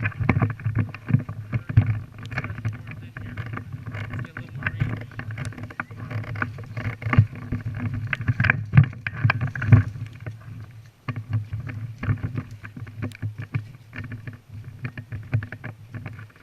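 Irregular rustling, scuffing and knocking close to the microphone, as of a player's clothing and gear moving about, with many short clicks and uneven loudness.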